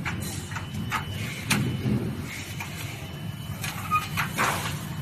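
Several short clicks and knocks of an end cap being handled and snapped onto the end of a metal power rail, over a steady low hum.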